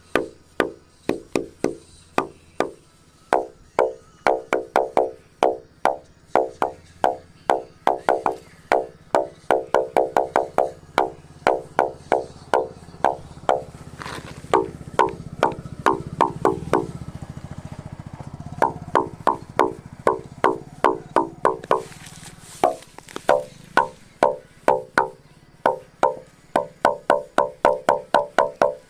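Rapid runs of hollow wooden knocks, a branch being struck over and over, each knock short and pitched like a wood block, in quick, uneven rhythms. A low rumble swells and fades in the middle.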